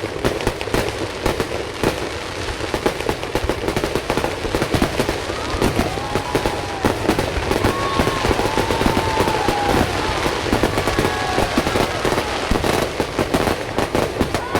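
Aerial fireworks going off in rapid, dense bangs and crackle, with some rising-and-falling tones through the middle.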